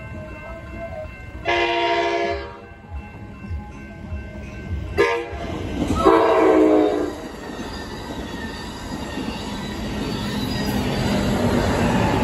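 Amtrak San Joaquin train sounding its horn for the grade crossing: a blast about a second and a half in and another about six seconds in, each near a second long. After that the rising rumble of the train as it arrives through the crossing.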